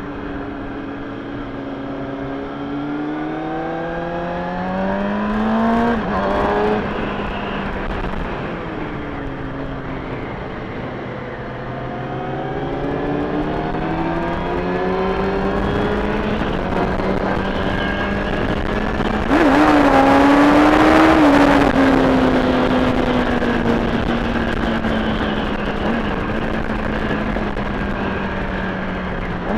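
Kawasaki ZX-6R inline-four motorcycle engine under way, revving up, dropping in pitch at a gear change about six seconds in, easing off, then pulling up again and settling into a cruise whose note slowly falls. A loud rushing noise cuts in for a couple of seconds about two-thirds of the way through.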